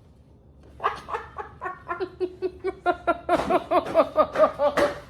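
A girl laughing in a long run of rapid, high-pitched bursts, starting about a second in and growing louder toward the end.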